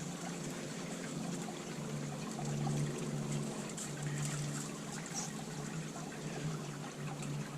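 Honeybees humming around an open top-bar hive, a steady low buzz that swells and fades slightly.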